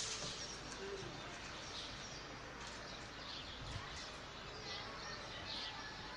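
Small birds chirping in short, scattered calls over a steady background hum of the city.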